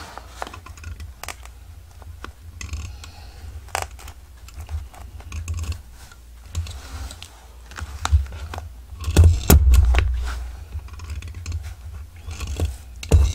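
Scraping, small clicks and desk thumps of a hole being made through a soft-cover journal's spine, with the loudest knocks about nine to ten seconds in.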